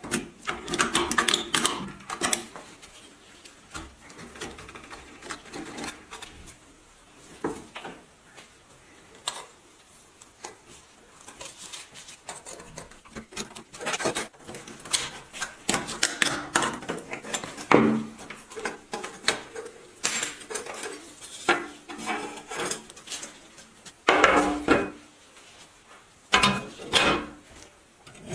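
Hand tools knocking, clinking and scraping on the rusted metal parts of an old grain grinder, in irregular bursts with quieter gaps between and the loudest strokes in the second half.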